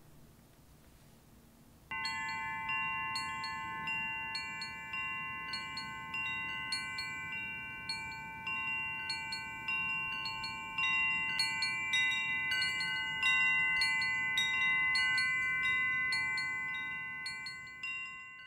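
Wind chimes ringing: after a quiet couple of seconds they start suddenly, several clear pitched notes struck again and again and left to ring on, fading out near the end.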